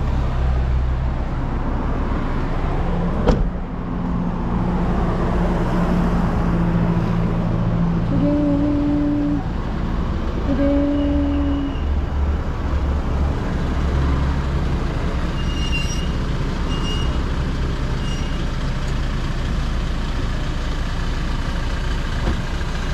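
A vehicle running, with steady engine and road rumble. A sharp knock comes about three seconds in, two held tones of about a second each sound near the middle, and a few faint short high beeps follow.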